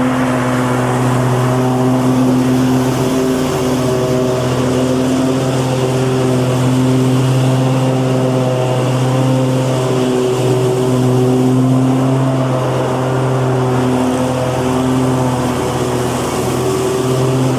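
Petrol lawn mower engine running steadily at constant speed, a continuous even drone with slight wavering in pitch.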